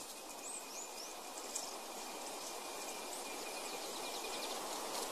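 Quiet natural outdoor ambience: a steady hiss with a few short, high bird chirps about half a second to a second in, a faint steady high whine, and a quick run of faint ticks near the end.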